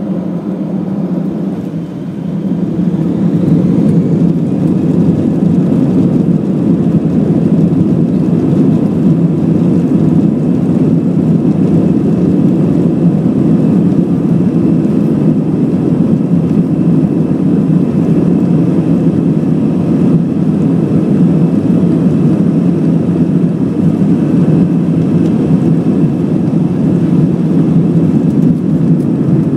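Airbus A319 jet engines heard from the cabin over the wing, spooling up to takeoff thrust about two seconds in with a faint rising whine, then a steady loud roar with runway rumble through the takeoff roll.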